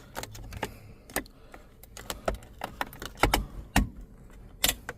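Plastic interior trim clicking and knocking as it is pried and worked loose from its clips: a dozen or so sharp, separate clicks, the loudest a little past three seconds, just before four seconds, and near the end.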